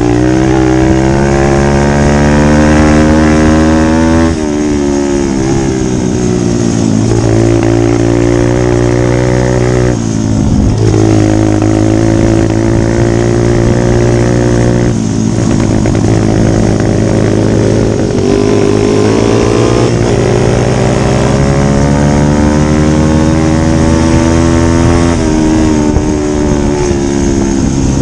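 Pit bike engine under way on a gravel track, its revs climbing steadily under throttle and then dropping sharply about four, ten, fifteen and twenty-five seconds in.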